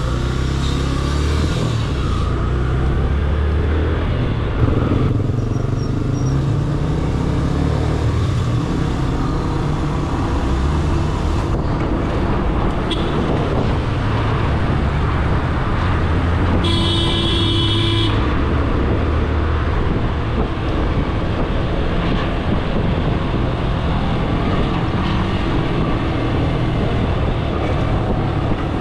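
Motorcycle engine running while riding in traffic, with steady wind and road noise. A brief horn-like tone lasts about a second, roughly two-thirds of the way through.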